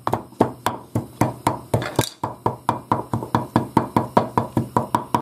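Wooden pestle pounding fried garlic cloves in a wooden mortar: a fast, steady run of knocks, about five a second.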